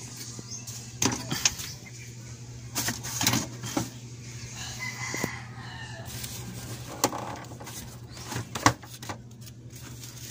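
Scattered clicks and light knocks from handling the opened CRT television during repair, over a steady low hum. A faint, drawn-out wavering call sounds in the background about halfway through.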